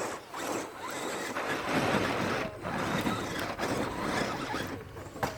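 Small electric motor and gearbox of an RC rock crawler whirring in stop-start bursts as the truck crawls over rough ground.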